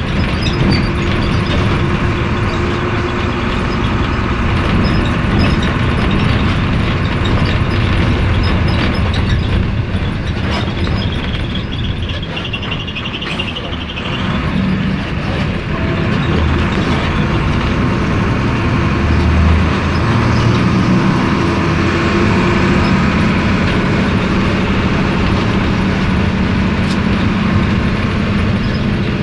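Mercedes-Benz OF-1721 city bus's OM 366 LA turbodiesel straight-six running as the bus drives. The engine eases off about midway, then pulls again.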